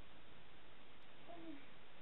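Steady hiss of room tone, with one short, wavering murmur from a woman's voice about a second and a half in, as she stirs and sits up in bed.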